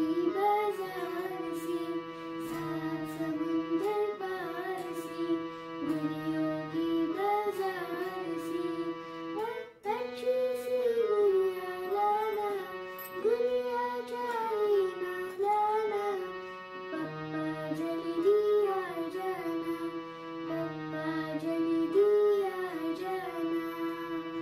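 A young girl singing a Hindi film song, accompanying herself on an electronic keyboard that holds steady chords under her voice, with a short break about ten seconds in.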